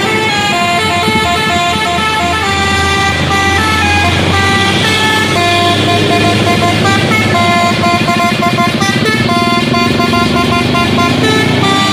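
Heavy diesel trucks labouring up a steep climb while a multi-tone musical truck horn plays a tune in stepped notes over the engine hum.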